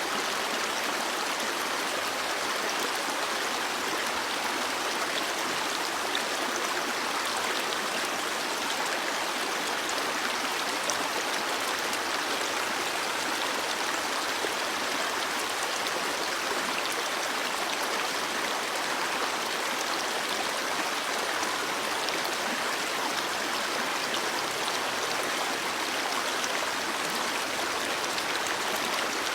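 Stream water flowing and babbling steadily over rocks, a continuous rushing wash with small splashes.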